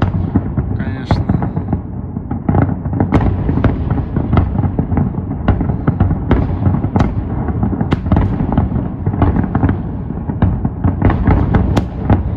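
Fireworks display: a continuous low rumble of booms with many sharp cracks and bangs overlapping throughout.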